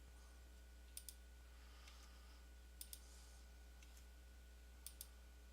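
Computer mouse double-clicking three times, faint, over a steady low hum.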